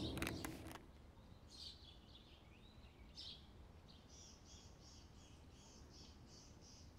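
Faint bird calls: two short high calls, then from about four seconds in a quick, evenly repeated chirping of about three notes a second.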